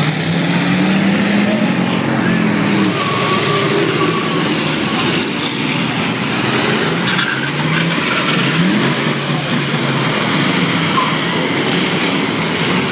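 Several race car engines running and revving as a pack of cars laps a short oval track, their pitch rising and falling as they accelerate and lift off.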